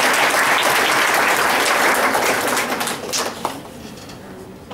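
Audience applauding, a dense clatter of many hands clapping that fades away after about three seconds.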